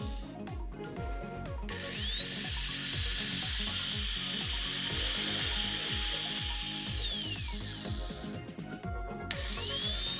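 Electric grinder motor whine under a speed controller: it climbs steadily to a high pitch over about three seconds, then winds back down, and starts climbing again near the end. Background music with a steady beat plays underneath.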